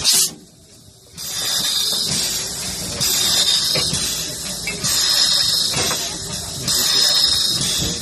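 Harz narrow-gauge steam locomotive hissing at rest, a high steady hiss of steam that swells and eases every second or two. The hiss cuts out briefly just after the start, then comes back.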